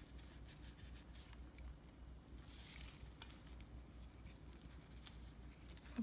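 Faint handling sounds of cooked shrimp being set down on a platter by hands in plastic gloves: soft scattered ticks and a brief rustle a little before halfway, over a low steady hum.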